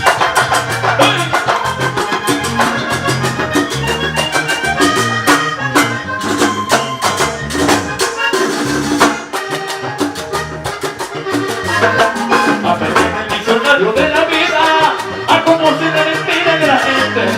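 Salsa-style music in an instrumental passage without lyrics, with a steady percussion beat, bass line and melodic instrument lines.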